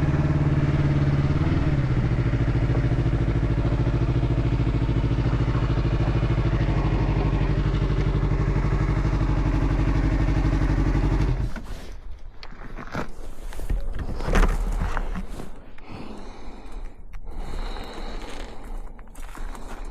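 Motorcycle engine idling steadily, settling slightly lower in pitch a second or two in, then switched off and cutting out abruptly about eleven seconds in. Afterwards come irregular scrapes, clatters and knocks, with one sharp thump a few seconds after the engine stops.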